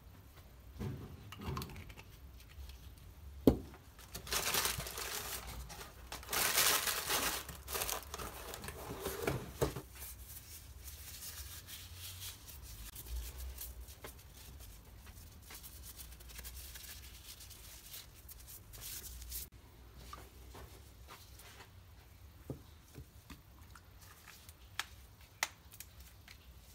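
Thin plastic disposable gloves crinkling and rustling as they are handled and pulled on, loudest in a run of bursts a few seconds long, just after a single sharp knock. Later come only a few light clicks and taps of small things set down on the bench.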